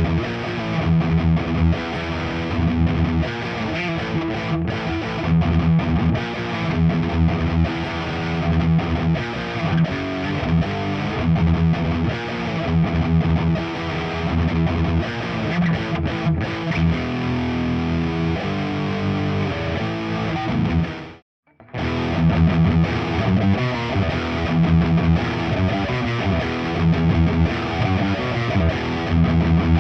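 Nik Huber Krautster I electric guitar with its stock Haussel pickup, played through a Diezel VH4 amp and a miked Marshall 4x12 cabinet: riffing and chords. The sound cuts out for about half a second about 21 seconds in, then the playing resumes.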